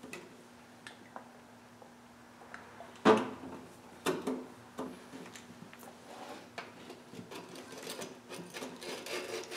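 Metal tool handling on a small-engine cylinder block: a sharp clank about three seconds in and a couple more knocks, then a run of light clicks and rattles as a spring-loaded cylinder hone is fitted into the bore, over a faint steady hum.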